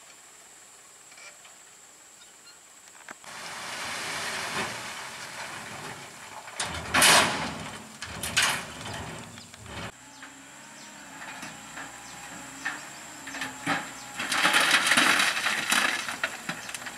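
Trucks on the road: a rush of passing traffic builds after about three seconds, then two short, loud hisses of air about a second and a half apart, and a longer hiss near the end.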